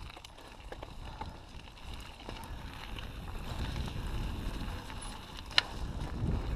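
Mountain bike ridden along a dirt singletrack: low wind buffeting on the camera microphone and tyre rumble that grows louder, with small rattles and clicks from the bike and one sharp clack about five and a half seconds in.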